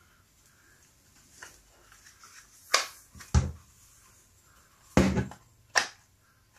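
Four sharp clicks and knocks of hard parts being fitted together by hand as a cordless angle grinder's head and housing are reassembled: two close together near the middle, two more about two seconds later.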